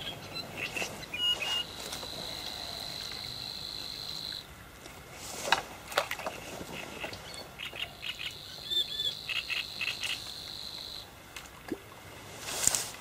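Calls of reedbed wildlife at a lake shore: a high, steady trill held for a couple of seconds, twice, over many short repeated chirps. A few sharp clicks sound midway and a brief rush of noise comes near the end.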